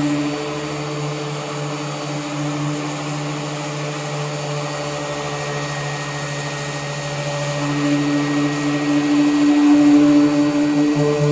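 Power sander running steadily on car body panels, a drone with a hum and a haze of grinding noise, getting somewhat louder near the end.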